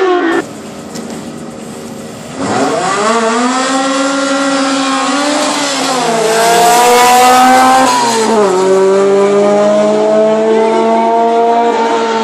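A race car's engine at full throttle accelerating down a drag strip, quieter for the first couple of seconds. The pitch then climbs steadily, drops sharply at two upshifts, about six and eight seconds in, and climbs again after each.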